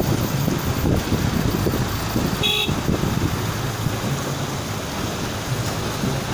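Storm wind buffeting the microphone over a steady rush of rain and traffic noise, with one short vehicle horn toot about two and a half seconds in.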